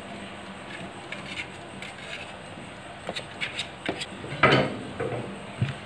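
Metal spatula blade scraping and tapping against an aluminium baking tray and the cookie squares as they are pushed together, with one louder clatter about four and a half seconds in.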